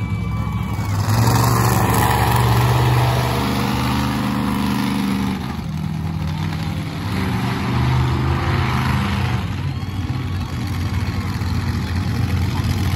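Monster truck engine running and revving hard, its pitch stepping up and down as the throttle opens and closes.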